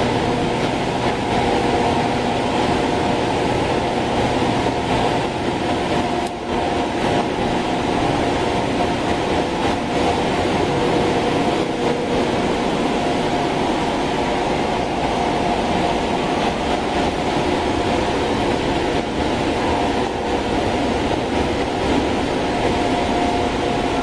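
Stainless-steel conveyor-belt microwave sterilizing machine running: a steady drone with a few constant hum tones.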